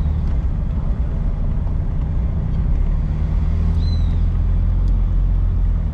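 Car driving: a steady low engine and road rumble, heard from inside the cabin.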